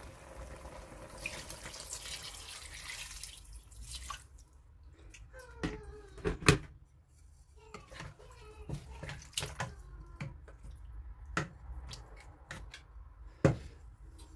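Water poured into a stainless steel cooking pot of chicken and fish for about three seconds, then a wooden spatula stirring the pot, with scattered sharp knocks against the pot.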